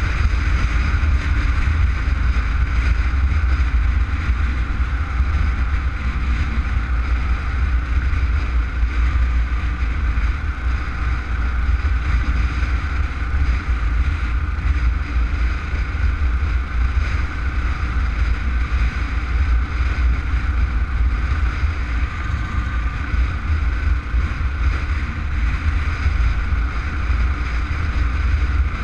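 Wind rushing over the microphone of a rider's camera while riding at a steady speed: a constant heavy low rumble with road and engine noise underneath.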